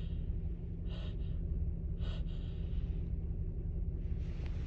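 A woman's short gasping breaths, one about every second, then a longer drawn-in breath near the end: the catching breaths of a sneeze building that does not come.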